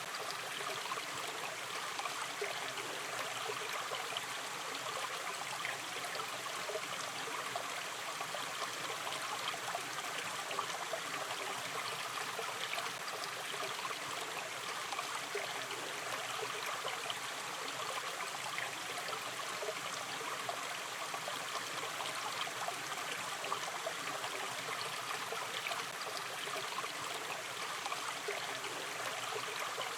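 Shallow river stream flowing steadily, a gentle continuous babble of running water with fine trickling and gurgling detail.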